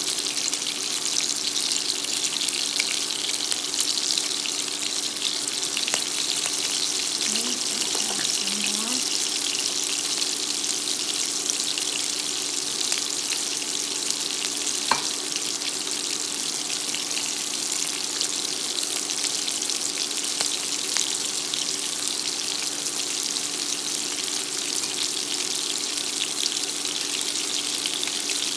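Coconut-coated shrimp frying in hot avocado oil in a skillet: a steady sizzle with fine, continuous crackling, over a faint steady hum.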